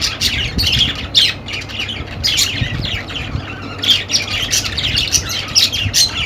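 Budgerigars chattering: a rapid stream of chirps, warbles and short squawks.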